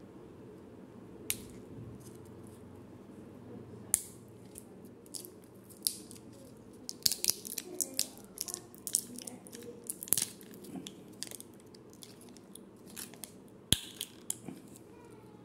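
Plastic jelly cup and its paper-foil lid being picked at and peeled back by fingers: scattered crinkles and sharp clicks, thickest in the middle and again near the end, over a low steady hum.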